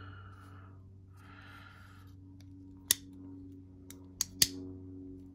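Small metal clicks from a SOC JCape V3 folding knife being handled while its loose pivot is worked back into place: a soft rustle early, then three sharp clicks, the last two close together, over a faint steady hum.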